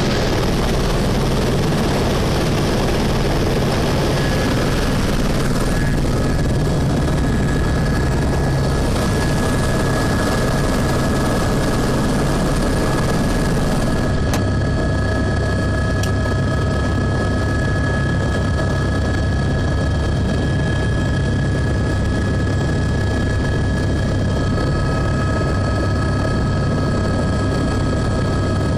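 Helicopter running on the ground, heard from inside the cabin: a steady whine of several held tones over a loud, unchanging rotor and engine noise.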